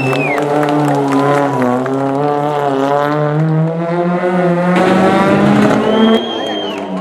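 Rally car engine running at held, slowly wavering revs, with a short rush of noise about five seconds in. High, brief whistle-like glides come at the start and near the end.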